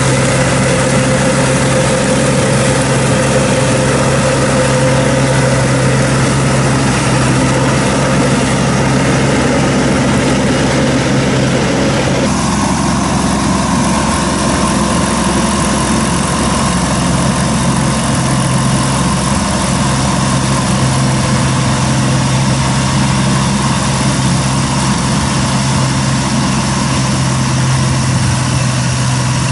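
Engine of a Kaneko hammer-knife flail mower on a rubber-tracked crawler running steadily under load, with the flail rotor chopping weeds. The sound shifts abruptly about twelve seconds in.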